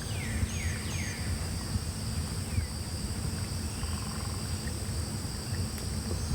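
Outdoor ambience: insects droning steadily on two high pitches, with a bird giving three quick downward-sliding whistles in the first second and one fainter whistle about halfway through. A steady low rumble runs underneath.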